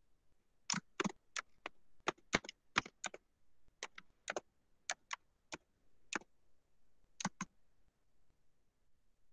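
Typing on a computer keyboard: a run of about eighteen sharp key clicks in irregular clusters with short pauses, stopping a couple of seconds before the end.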